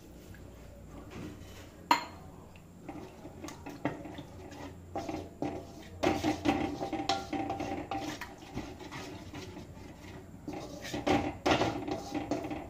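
Spatula scraping and knocking against a metal kadai while stirring milk into a thick masala, with a sharp knock about two seconds in.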